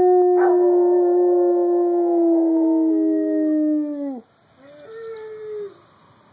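A dog howling: one long, steady howl that sags slightly in pitch and ends about four seconds in, followed by a shorter, quieter howl.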